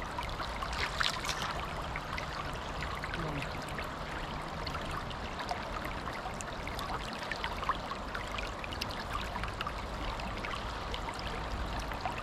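River water flowing steadily, a continuous wash with small scattered ticks and splashes.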